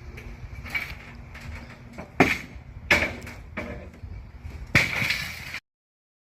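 Scrap metal clanking and banging as it is handled, with a string of sharp knocks; the loudest come about two seconds in, just before three seconds and just before five seconds. The sound cuts off abruptly near the end.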